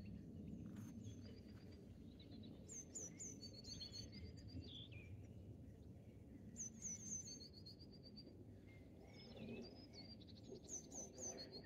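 Faint birdsong: a small songbird repeating short phrases of quick, high notes every few seconds, over a faint low outdoor hum.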